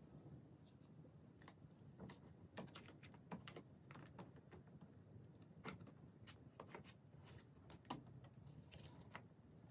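Faint, scattered light clicks and taps from handling glue-soaked paper joint tape and a small hand tool in a plastic paint tray, at irregular intervals a second or so apart.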